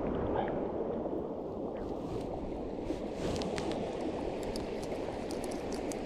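River water flowing steadily, a low even rush, with a few faint light clicks in the second half.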